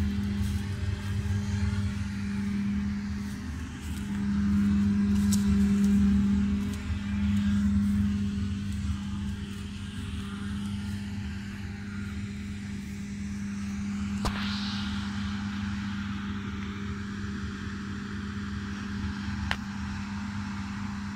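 Deutz-Fahr tractor's diesel engine running with a steady hum, swelling louder for a few seconds early on. Two sharp clicks are heard, one a little past the middle and one near the end.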